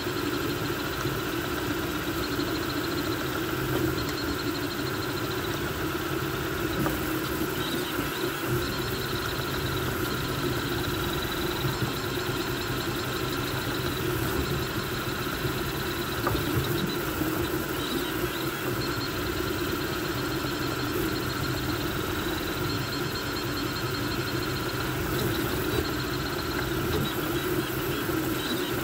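Voron V2.4 CoreXY 3D printer printing at high speed: a steady whir of cooling fans with stepper-motor whine that shifts and breaks off every few seconds as the toolhead changes moves.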